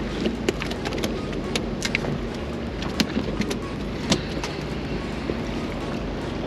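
Boat engine running steadily, with scattered sharp clicks and taps over it.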